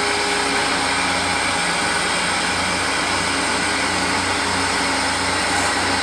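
Steady mechanical whir and hiss with a low hum from a servo-hydraulic bogie rotation test rig, running as it turns a train bogie under the car body.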